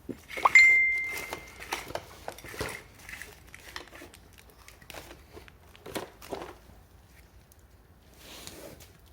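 Metal parts and hand tools clinking and clattering as they are handled, with one sharp metallic strike about half a second in that rings on for about a second.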